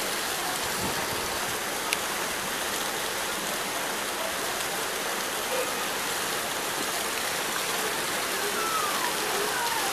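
Steady rush of water from an artificial waterfall splashing into a pool.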